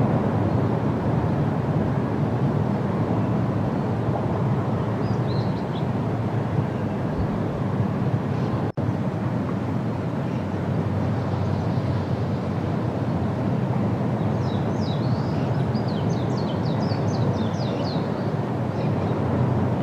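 Steady low rumbling outdoor background noise. Faint, quick high bird chirps sound once about five seconds in and in a run over the second half, and the sound drops out for an instant a little before halfway.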